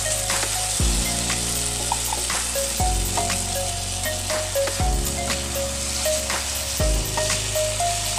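Sardines in tomato sauce and sliced bananas sizzling in a pan, with scattered clicks and scrapes of a spatula stirring them. Background music with a bass note that changes about every two seconds plays throughout.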